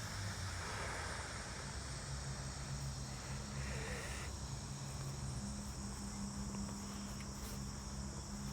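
Steady high-pitched insect chirring, with a low steady hum underneath.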